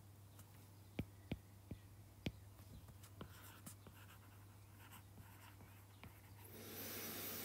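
Stylus tapping and writing on a tablet screen: a few faint sharp clicks about a second in, then a soft swell of noise near the end, over a low steady hum.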